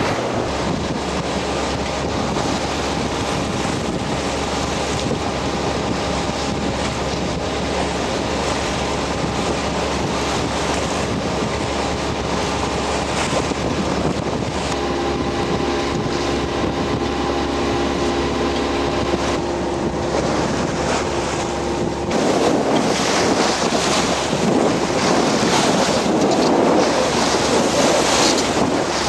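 Wind buffeting the microphone over choppy waves slapping and splashing around a boat, with a low steady hum underneath. About two-thirds of the way through the hum drops away and the rushing, splashing water gets louder.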